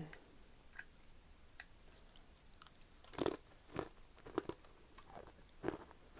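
A person chewing and biting fried food, with faint mouth clicks at first and a few louder chews from about three seconds in.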